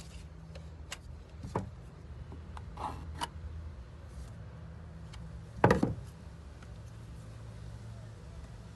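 Hand tools being handled at a uPVC door: a few light knocks and a short scrape, with one louder knock about two-thirds of the way through, over a low steady hum.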